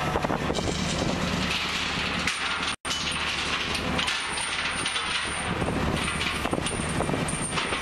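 Trawler deck noise: the boat's engine and deck machinery humming steadily under a wash of wind and sea noise. The sound cuts out for an instant about three seconds in.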